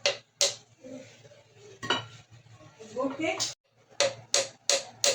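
Kitchen utensil clinking against cookware: a few sharp separate clinks, then a quicker run of about three clinks a second near the end.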